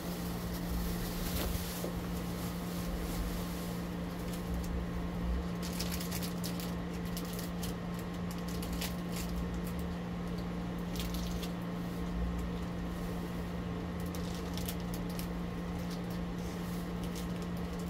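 Crackers being chewed: scattered faint crunching clicks over a steady low hum.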